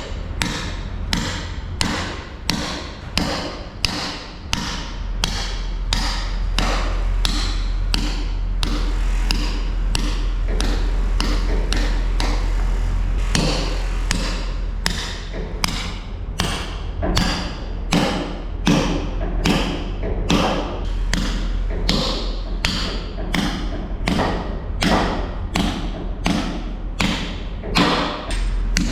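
A steady run of evenly spaced thuds, about one and a half a second, over a low steady hum.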